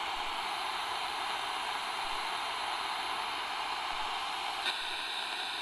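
Steady hiss of static-like noise, its tone shifting slightly near the end.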